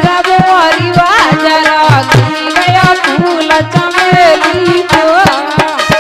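Indian folk music: a hand drum plays a quick, steady rhythm of deep strokes under a gliding, ornamented melody line.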